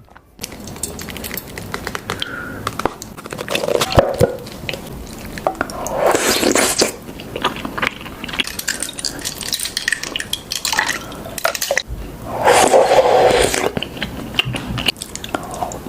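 Close-miked ASMR eating sounds of boba tea: sipping through a straw and chewing tapioca pearls, full of small wet clicks. There are two longer, louder stretches, about six seconds in and again about twelve seconds in.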